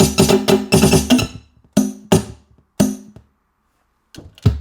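Linn LM-1 drum machine, just switched on, firing off its drum samples by itself: a fast run of pitched percussive hits, about eight a second, then a few scattered hits with gaps between them. This is the erratic triggering of a Z80-based machine that has not booted cleanly and needs rebooting.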